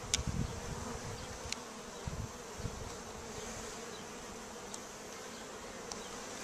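Honey bees buzzing steadily around the opened combs of a wild colony being hived, with a few faint clicks from handling the comb and rubber band.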